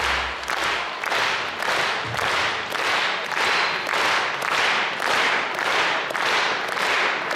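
Concert audience clapping in unison, a steady beat of about two claps a second. The band's last chord dies away in the first second.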